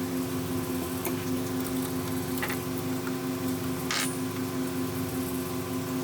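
A steady mechanical hum holding one pitch, with a few faint clicks.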